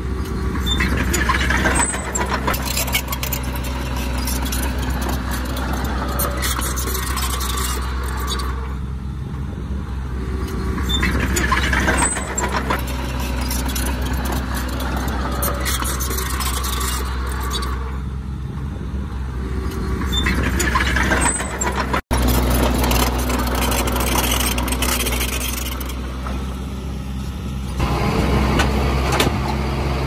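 Komatsu D20P crawler bulldozer's diesel engine running steadily, with surges of mechanical clatter every few seconds as it works. The sound drops out for an instant about two-thirds of the way through.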